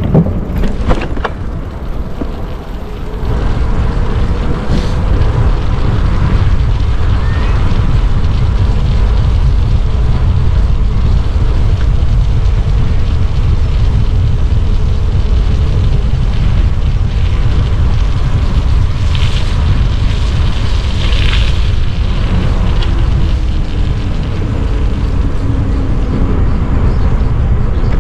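Wind buffeting the microphone as the Stromer ST2 speed pedelec rides along at speed: a heavy, steady low rumble that sets in about three seconds in, after a few sharp clicks.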